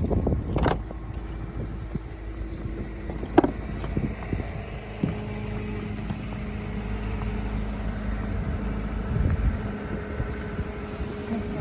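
Car engine idling steadily with a low rumble and hum. A single sharp knock comes about three and a half seconds in, with a few lighter clicks.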